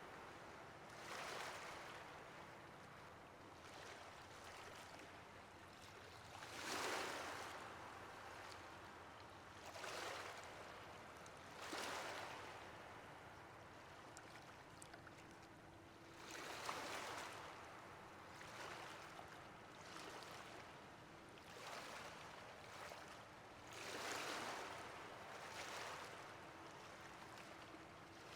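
Ocean waves washing onto a shore: a soft hiss of surf that swells and fades about every two to four seconds.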